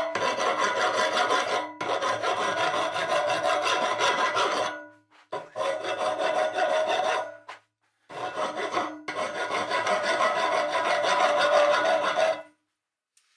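Hand file scraping back and forth on a bronze rod clamped in a bench vise, in quick, continuous strokes. The filing breaks off twice for a moment in the middle and stops about a second before the end.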